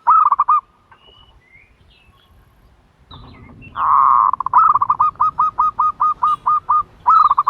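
Turtle dove calling loudly: a quick burst of short hooked notes, then after a pause one long note followed by a steady run of about a dozen short repeated notes and another quick burst.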